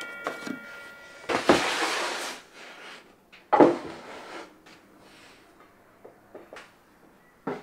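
Cut pine boards being handled on a wooden worktop: light clicks and knocks, a louder sliding rush ending in a thud about a second and a half in, and another sharp knock of wood on wood around three and a half seconds. At the very start, the ring of the miter saw blade spinning down fades out.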